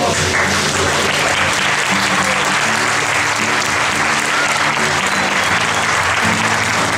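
Audience applauding steadily at a curtain call, with background music playing underneath.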